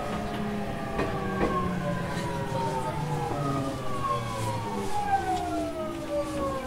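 GTO-thyristor VVVF inverter and traction motors of a JR East 209 series 3000 electric train (motor car MoHa 208-3002) sounding several tones that fall slowly in pitch together as the train brakes into a station, over a low running rumble. A few short knocks come from the wheels.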